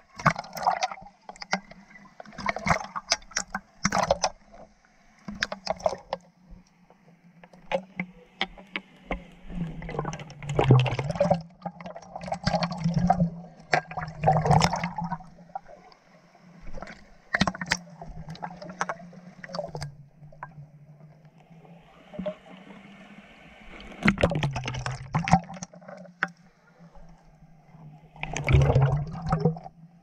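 River water sloshing, splashing and gurgling against an action camera held at the surface as it dips in and out of the water, in irregular bursts over a steady low rumble. Muffled when it goes under.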